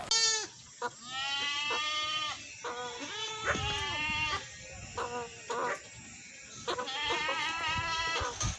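Several goats bleating in a series of calls: some long and wavering, some short, at different pitches and partly overlapping.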